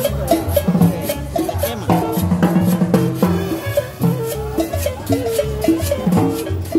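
Live band playing upbeat Latin dance music. A drum kit with cymbals and a conga keep a steady beat under a bass line and a horn melody.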